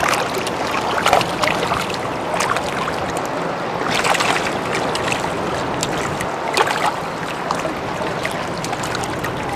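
Water sloshing and splashing against the side of a small boat, over a steady rushing noise. Several sharper splashes stand out, the biggest about four seconds in.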